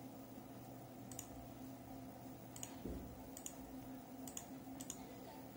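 Computer mouse button clicking about six times, two of the clicks in quick succession near the end, with a soft low thump about halfway through. Under it runs a faint steady hum.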